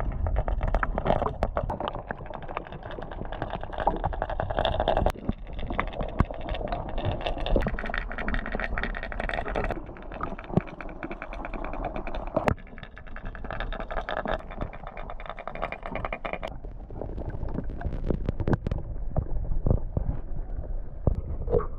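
Muffled underwater rumble and swirl picked up by a submerged camera, dense with small clicks and knocks. The sound changes character about sixteen seconds in, turning duller.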